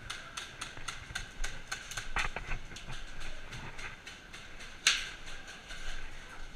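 Footsteps of a person running, a sharp step about four times a second that thins out after a few seconds, and one louder sharp crack about five seconds in.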